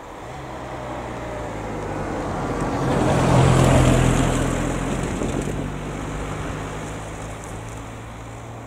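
A car drives past close by: its tyre and engine noise grows louder, peaks about halfway through, then fades as it moves away.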